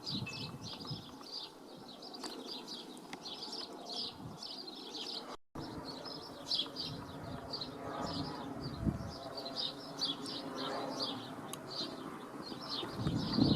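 Small bird chirping over and over, several short high chirps a second, with a faint low rumble beneath and a brief dropout about five seconds in.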